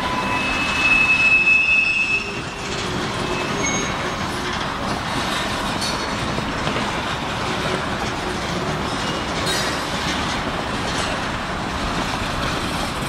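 Wheels of a long Union Pacific freight train squealing and clattering as the cars roll over a series of track switches: noisy. A high squeal is loudest in the first couple of seconds, then a steady rumble of railcars with a few sharp clacks.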